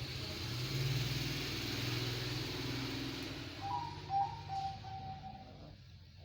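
Cat growling low and yowling in a drawn-out territorial standoff, fading near the end.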